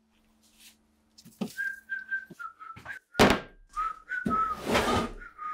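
Someone whistling a short tune, the notes stepping up and down. A heavy thud comes about three seconds in, with bursts of rustling noise around it.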